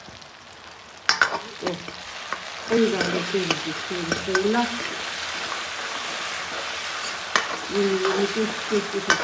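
Onions and tomatoes frying in hot oil in a pan, sizzling steadily as they are stirred, with a few sharp clatters about a second in.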